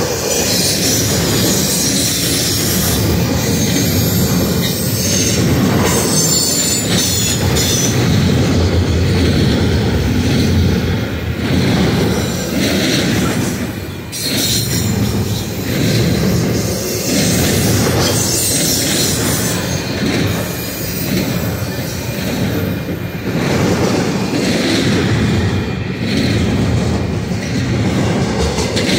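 Union Pacific double-stack container train's loaded well cars rolling past close by: a steady rumble of steel wheels on rail. A high wheel squeal comes and goes over it.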